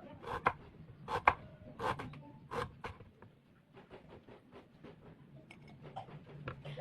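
Knife cutting rhizomes on a cutting board: several sharp strokes in the first three seconds, then quicker, fainter strokes.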